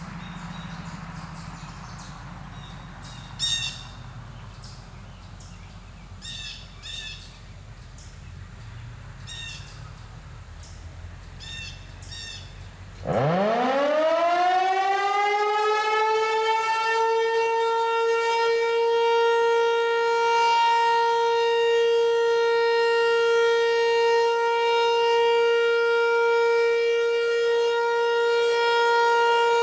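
Federal Signal Equinox outdoor warning siren starting up for its quarterly test about 13 seconds in. It winds up with a quickly rising pitch, then holds one loud steady tone. Before it starts, birds chirp a few times over a low background rumble.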